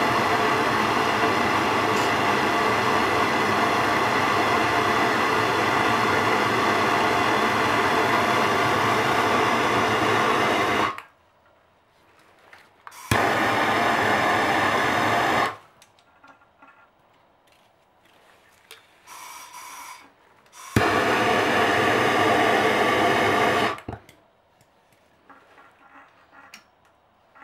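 Handheld gas torch flame hissing steadily on a copper pipe joint, heating it to sweat solder into the fitting. It cuts off about eleven seconds in, then burns twice more in shorter bursts of about two and three seconds.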